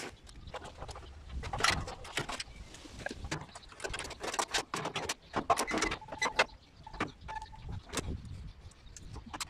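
Irregular clunks, knocks and rattles of a stripped-down front-loading washing machine being handled by hand, its drum and cabinet shifted about while it is being taken apart.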